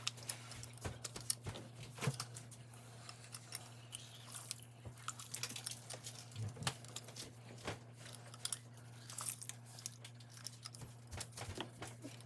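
Limes squeezed by hand over a bowl of diced raw fish, the rind crackling and the juice squirting and dripping in irregular small clicks. A steady low hum runs underneath.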